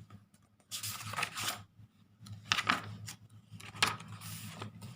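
Scratchy writing strokes, several in a row with short pauses between them, as letters are written out by hand.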